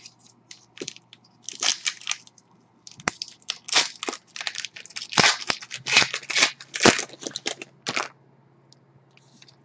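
Crinkling and crackling of a trading-card pack wrapper and cards being handled as a pack of hockey cards is opened. It comes as a run of irregular rustles from about a second and a half in until about eight seconds.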